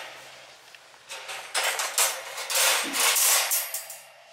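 Wire panels of a folding metal dog crate rattling and scraping against each other as a side panel is swung up into place, a run of scrapes and clanks starting about a second in and dying away near the end.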